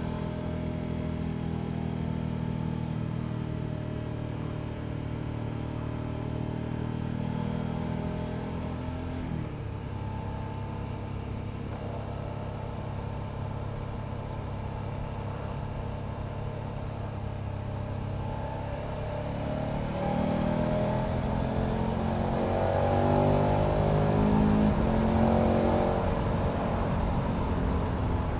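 KTM 1290 Super Adventure's V-twin engine on the move, heard from the bike. The note runs steady, drops about nine seconds in, then about two-thirds of the way through gets louder as the bike accelerates, its pitch rising and falling several times through the gear changes.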